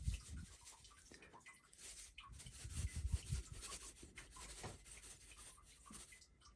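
Faint rubbing and light scraping handling noises, with soft low thumps right at the start and about three seconds in.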